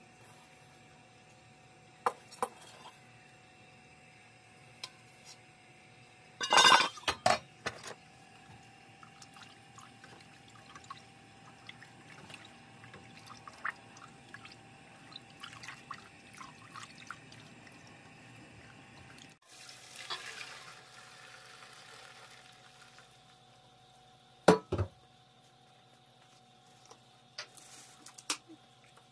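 Kitchen clinks and knocks of bowls against a stainless steel bowl and a pot, with a cluster of strikes about seven seconds in and a single loud knock near the end, as glutinous rice flour is scooped into a thin rice mixture and stirred, with some liquid sounds.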